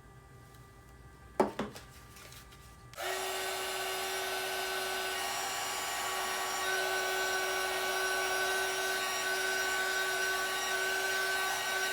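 A couple of clicks, then about three seconds in a small electric blower-type motor switches on and runs steadily with a rushing hiss and a steady whine.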